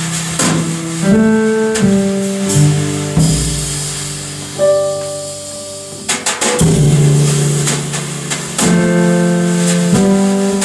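Jazz piano trio texture: sustained piano chords over double bass, with cymbal strikes and light drum accents. The music thins out about halfway through, then swells back after a cluster of cymbal hits.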